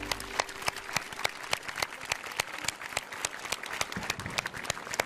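Audience applauding with many separate, distinct claps, as the last held chord of a song dies away in the first half-second.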